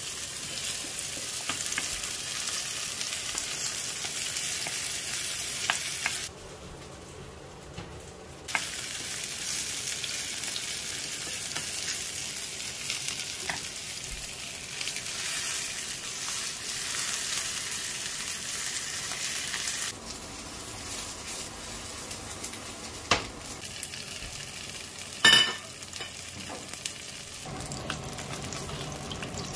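Mung bean pancakes (bindaetteok) sizzling steadily as they pan-fry in oil. The sizzle quiets for a couple of seconds about six seconds in, and a sharp clink sounds near the end.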